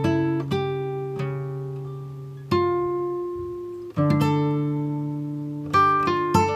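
Background music on a plucked string instrument, guitar-like: slow notes and chords, each struck and left to ring out and fade.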